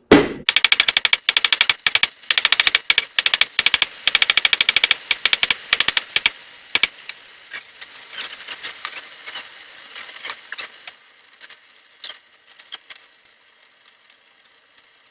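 Fast runs of hammer blows on hot steel, forging a sword's tip, each blow with a bright metallic ring. The runs stop about seven seconds in, leaving scattered lighter taps that fade out.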